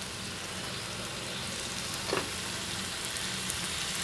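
Chopped tomatoes sizzling steadily in hot oil in a nonstick kadai, with one brief soft knock about two seconds in.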